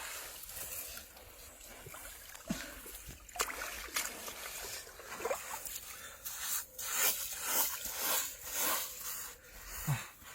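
Water splashing and sloshing, with a run of irregular knocks and scrapes that grows busier in the second half.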